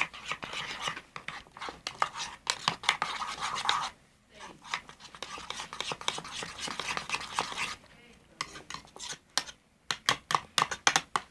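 A utensil stirring and scraping against a bowl while slime is mixed, in a rapid run of irregular clicks and scrapes. It pauses briefly about four seconds in and again around eight seconds.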